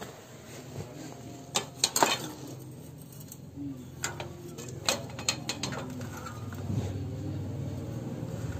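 Hard objects clinking and knocking together, with a few sharp clanks, typical of metal parts being handled. Near the end a low steady rumble sets in.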